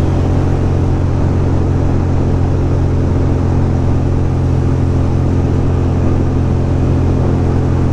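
2006 Ducati Monster 620's air-cooled L-twin engine running at a steady cruising speed, its pitch holding even with no revving, under a constant rush of wind and road noise.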